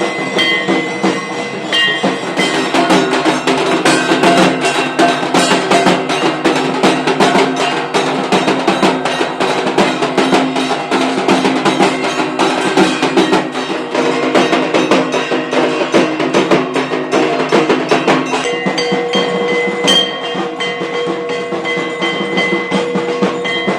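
Fast, continuous ritual drumming with ringing bells for the Sandhi puja of Durga Puja, the drums beaten rapidly without pause. Long held tones sound over the drumming throughout, changing to a higher tone about three-quarters of the way through.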